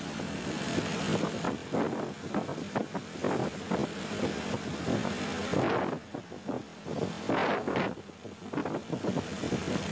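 Road traffic passing close by: vehicle engines and tyres droning, louder in the first half and easing off about six seconds in.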